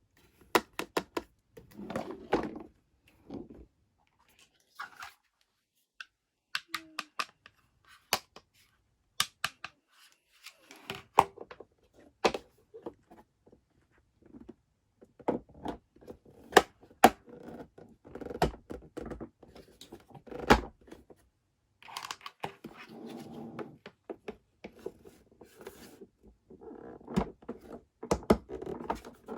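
Small plastic toy kitchen pieces being handled, tapped and set down, making irregular sharp clicks and knocks, with stretches of soft scratchy rustling from the packaging between them.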